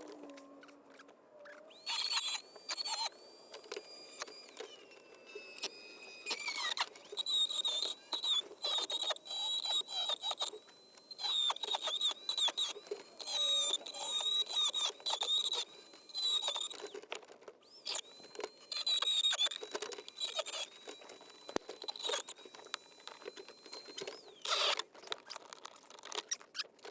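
Power tool with a drill-mill bit cutting through the plastic HVAC box: a high-pitched whine that starts and stops in short runs. About six seconds in, the pitch drops as the bit bogs under load.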